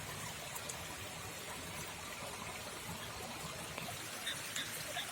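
Rain-fed waterfall stream running: a steady rush and trickle of water, with a few light ticks near the end.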